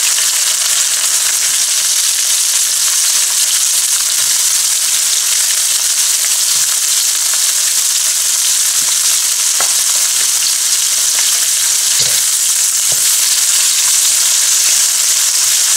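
Sliced bitter gourd (karela) frying in hot oil, a steady sizzle with an occasional faint pop.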